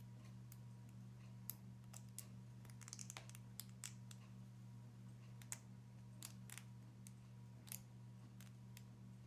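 Scattered light clicks and taps of small parts being handled, a cluster of quick ones a few seconds in, over a faint steady hum.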